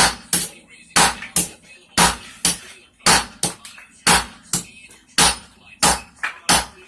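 Hand hammer striking a hot railroad spike on an anvil, forging it flat: steady sharp blows about two a second, each with a short ring.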